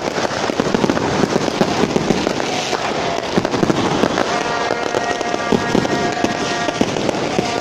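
Firecrackers and fireworks going off thick and fast all around: a dense, unbroken run of overlapping bangs and crackling. From a little past halfway, a steady pitched tone sounds over the bangs.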